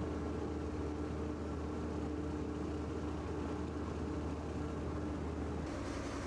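An engine running steadily: a low, even hum with a few held tones above it. The sound changes abruptly near the end.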